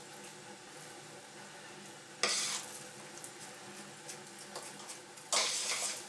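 Spoon stirring a wet minced-pork mixture in a stainless steel pot, with two louder squelching swishes, about two seconds in and near the end.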